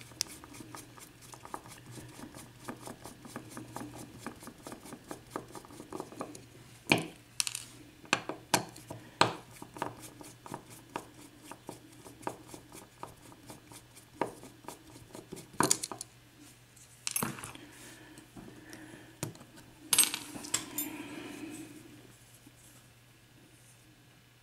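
Small metal lock parts and hand tools clicking and clinking as a Dorma mortise lock cylinder is taken apart. Light rapid clicks run through most of it, with several sharper metal clinks scattered among them, and it goes quiet near the end.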